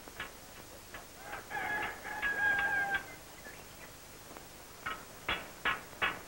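A rooster crowing and hens clucking. From about five seconds in, a hammer strikes iron on an anvil with ringing blows about twice a second; these are the loudest sounds.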